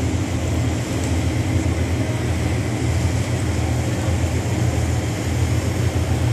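Steady low drone of a passenger ferry's engines under way, heard from on board, with an even rushing noise over it.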